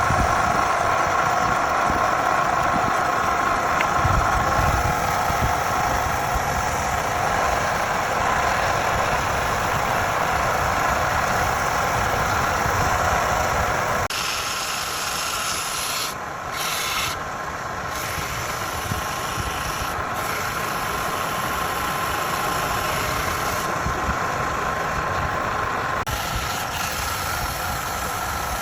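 Wood lathe running, with a tool working against the spinning wood in a steady scraping rub over the motor's hum. The sound changes abruptly about halfway through and again near the end.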